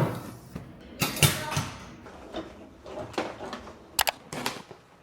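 Irregular clicks and knocks, as of objects being handled, with sharp strikes about a second in and again about four seconds in.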